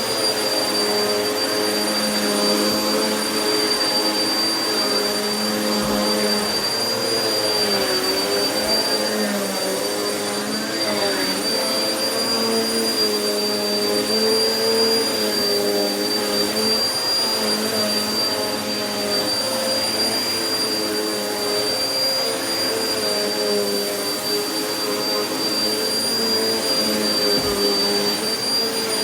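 Vacuum cleaner running steadily on carpet, a constant motor whine over a rush of airflow, its pitch dipping and recovering a little as it is pushed back and forth.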